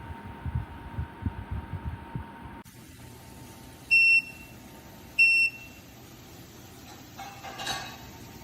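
Two short, high electronic beeps about a second apart, the kind an electric tower space heater's control panel gives when a button or remote command is received. Before them come a few low, dull thumps of handling, and near the end a brief rustle.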